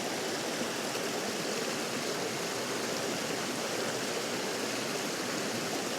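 Steady rush of fast-flowing water from a stream, cutting in suddenly and cutting off just after the end.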